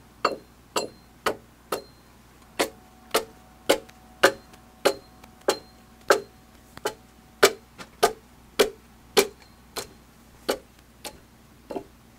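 Axe chopping into a round timber log in a steady rhythm, about two sharp strikes a second, cutting the log down to size.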